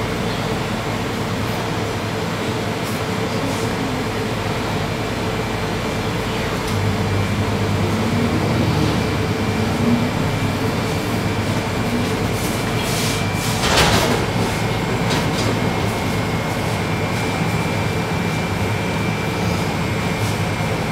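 Steady hum of running machinery with a faint high whine held on top, and a single sharp knock about fourteen seconds in.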